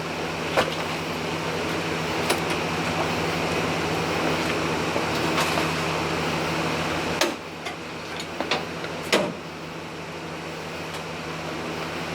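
A steady mechanical hum, like a fan or air conditioner, with a few sharp knocks and clanks. The hum drops in level about seven seconds in.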